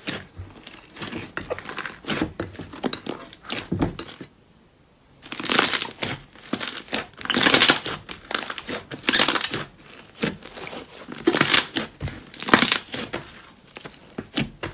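Slime being squeezed and pressed by hand, giving crackling, crinkling sounds in repeated bursts, with a short break a little after four seconds in.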